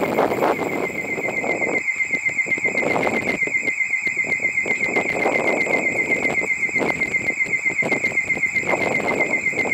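Station platform's electronic train-approaching warning tone: a high beep pulsing rapidly, about six times a second, without a break.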